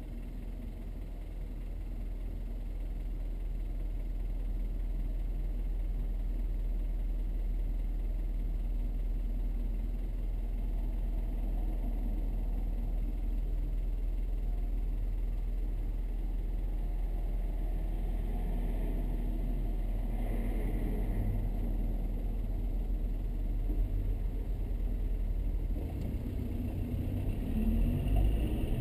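Steady low rumble inside the cabin of a Toyota Estima Hybrid waiting in traffic. Near the end a rising tone comes in as the car pulls away.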